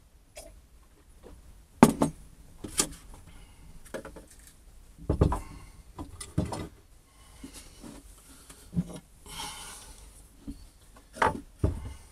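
Irregular knocks and clunks of tools and a steel G-clamp being picked up, moved and set down on a wooden workbench, with a short rustle about three-quarters of the way through.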